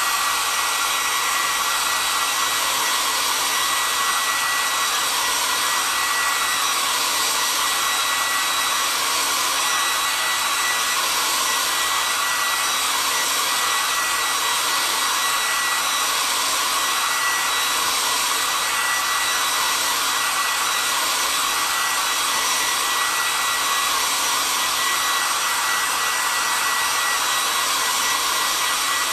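Handheld hair dryer running steadily, a rush of air with a steady high whine, blowing on wet chalk paste to dry it.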